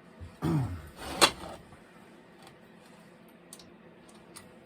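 Small clicks and clacks of chainsaw parts and tools being handled on a workbench: a brief sound falling in pitch, then one sharp click about a second in, and a few faint ticks after.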